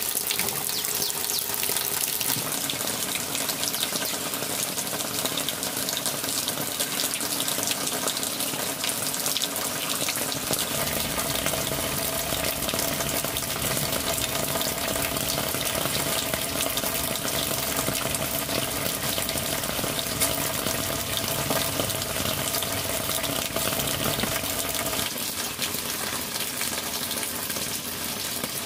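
Pork fat sizzling steadily with a fine crackle as it fries down into lard.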